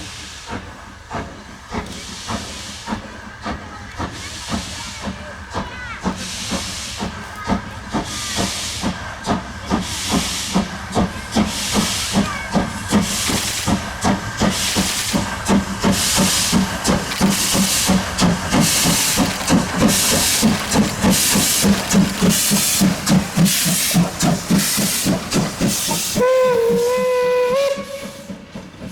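Steam locomotive 23 042, a two-cylinder DB class 23, working hard with steady exhaust chuffs that quicken and grow louder as it picks up speed. Near the end its steam whistle sounds for about two seconds.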